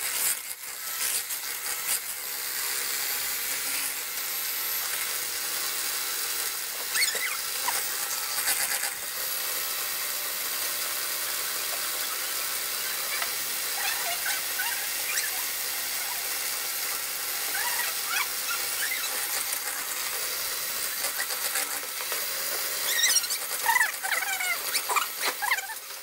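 Arçelik Mix Max electric hand mixer running steadily with a high-pitched motor whine, its beaters whipping eggs and sugar in a plastic bowl into a pale batter.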